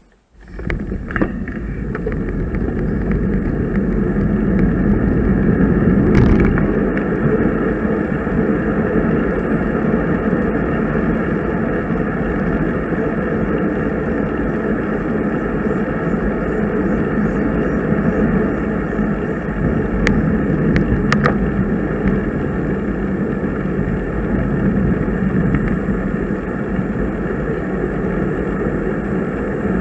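Steady rushing wind and road noise from a bicycle ride, setting in abruptly in the first half second, with a few brief clicks about six seconds in and again about two-thirds of the way through.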